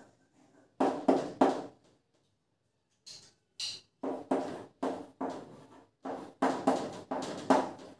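Writing on a board: a run of short, sharp strokes at an uneven pace, three close together about a second in, then a longer run through the rest.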